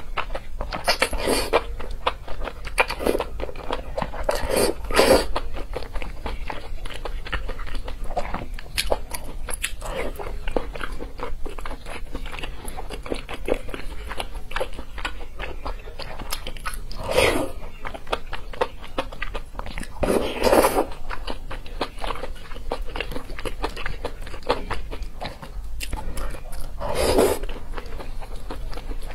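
Close-miked eating of spicy noodles and fish tofu: continuous wet chewing and smacking, broken by about six louder slurps of noodles.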